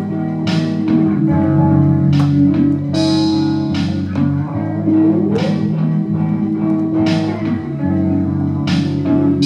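Guitar-led music with bass: sustained guitar notes and chords, with sharp accents every second or two.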